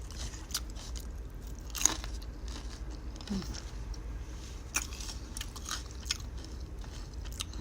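Close-up chewing of a crisp, burnt-edged fried vegetable fritter (bala-bala), with a few sharp crunches between quieter chewing. A steady low hum runs underneath.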